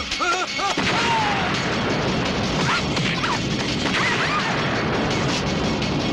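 A blazing fire's steady roar and crackle, with short shouted cries in the first second and a few more scattered through, and crashing impacts.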